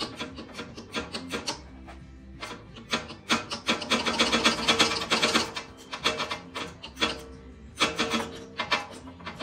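Rapid rasping clicks in bursts, busiest from about three and a half to five and a half seconds in, from a wrench tightening the mounting bolts of the mower's add-on lights.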